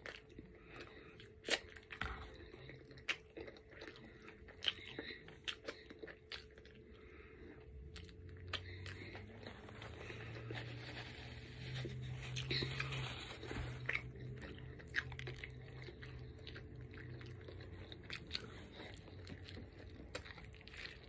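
Close-up mouth sounds of a person biting and chewing an egg, cheese and chorizo bagel sandwich: chewing with scattered sharp clicks and crunches. A low hum sounds for several seconds in the middle.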